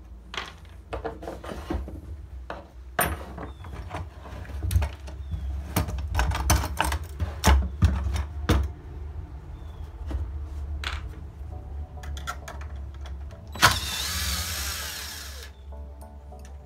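Clicks and knocks of metal ladder brackets and hardware being handled on a workbench, then about 14 seconds in a cordless drill runs for about two seconds, driving a screw into the platform board.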